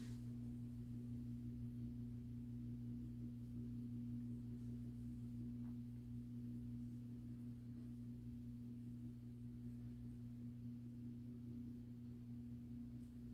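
Steady low hum made of two unchanging tones, one about an octave above the other; no knocks, cracks or other sounds stand out.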